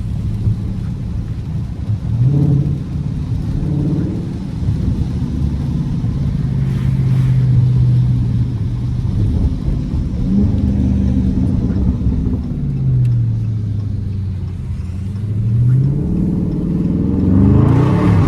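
Dodge Charger Scat Pack's 6.4-litre HEMI V8 running under way, its exhaust note holding steady, dropping and climbing again as the car speeds up and slows, with a hard rev rising quickly near the end.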